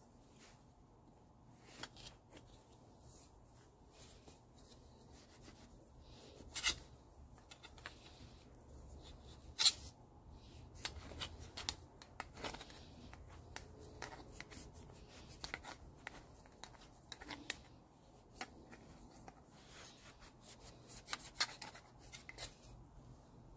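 Rag and rod rubbing and scraping inside the 1972 Honda CL70's twist-throttle grip tube, cleaning rust off its inner wall. Quiet, with scattered light clicks and a couple of sharper knocks in the first half.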